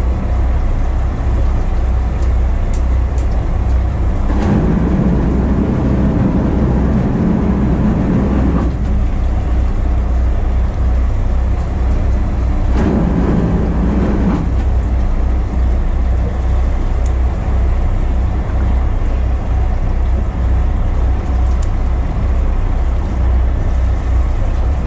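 Boat's engine running with a steady low rumble. Twice a louder, higher drone is added, for about four seconds starting around four seconds in and briefly around thirteen seconds in.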